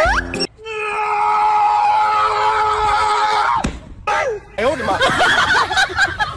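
A quick rising whistle-like glide, then one long held vocal cry of about three seconds that drops sharply in pitch as it ends, followed by shorter wavering voice sounds.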